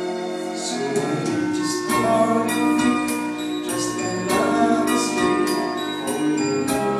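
A man and a woman singing into handheld microphones over instrumental backing music, with long held notes.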